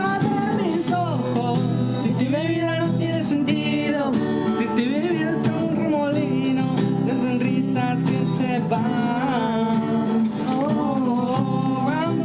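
Spanish-language pop love song with guitar and a male voice singing.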